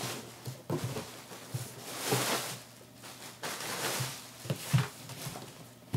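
Clear plastic bag crinkling and rustling as it is pulled aside, in two swells, with short knocks and scrapes of a cardboard box being handled.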